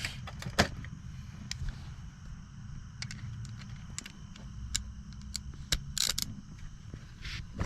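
Scattered metallic clicks and clinks of hand tools being handled as a 12 mm socket is made ready for the shifter nut, over a steady low rumble.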